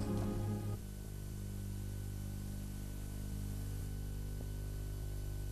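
A music note fades out in the first second, then a steady electrical mains hum with faint hiss continues unchanged.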